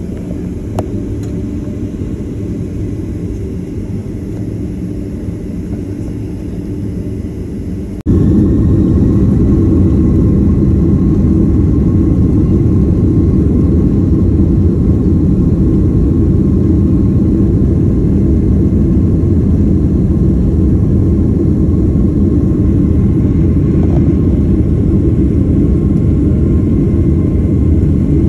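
Steady rumble of a jet airliner heard from inside the cabin, with a faint steady hum in it. It jumps abruptly louder about eight seconds in.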